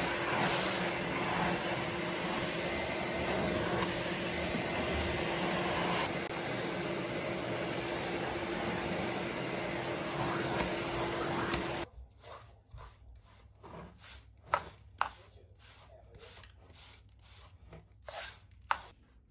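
Vacuum cleaner running steadily with a constant hum, switched off suddenly about twelve seconds in. Then a few faint knocks and clicks of handling follow.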